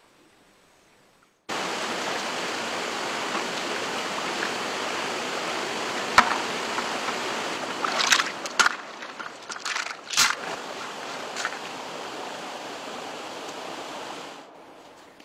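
Shallow stream running steadily over rocks, cutting in abruptly about a second and a half in and fading near the end. Several sharp splashes break over it, the loudest about six and ten seconds in, as hands scrub in the water.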